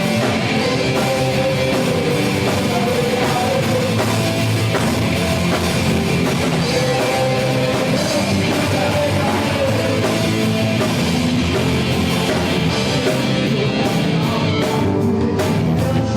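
A live gospel rock band playing loud, steady music with drums and guitars.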